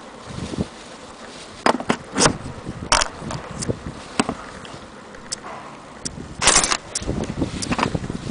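Small hard objects being handled: irregular clicks and taps with a few short scraping rustles.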